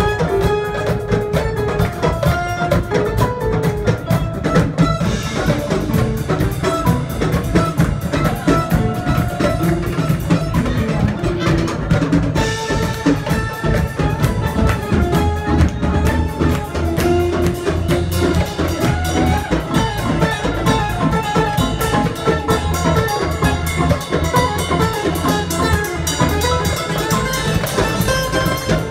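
Live band music: drum kit and a hand drum keep a dense, steady beat under acoustic guitar and a moving melodic line.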